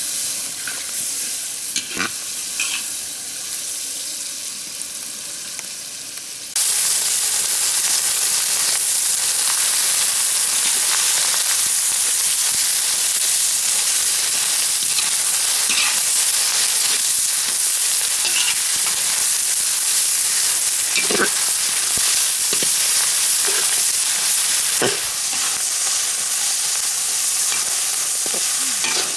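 Vegetables sizzling as they are stir-fried in a steel wok, a steady hiss with a few clicks and knocks. The sizzling grows suddenly louder about six seconds in and eases a little near the end.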